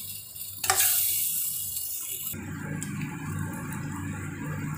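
Onion-tomato masala sizzling as it fries in a steel pan, a steady hiss, with a spatula scraping against the pan about a second in. About halfway through, a low steady hum comes in under the sizzle.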